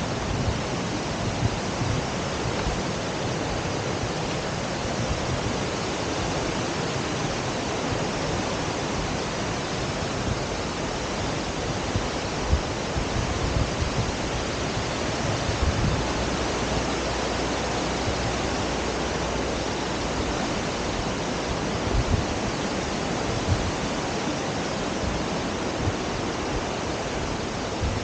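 Steady rush of a river's water cascading over rocks.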